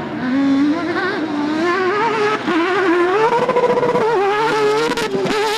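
Off-road rally car's engine revving hard under acceleration, its pitch climbing and wavering with the throttle, dipping briefly after about four seconds and rising again.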